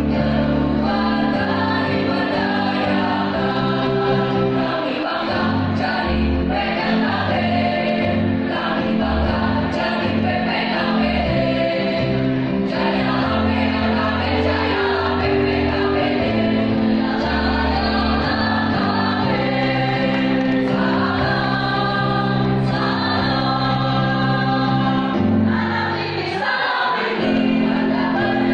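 A choir singing a song in harmony, over sustained low bass notes that change in steps.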